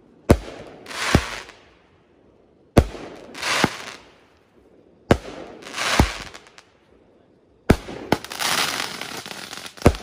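Aerial fireworks firing shot after shot, about every two and a half seconds: each shot is a sharp launch thump, followed under a second later by a hissing burst overhead. Near the end the shots come faster and overlap.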